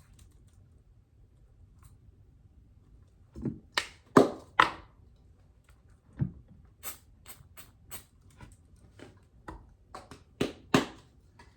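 Sharp clicks and taps of small hard parts being handled at a workbench: a few louder knocks about three and a half to five seconds in, then a run of lighter clicks about two a second.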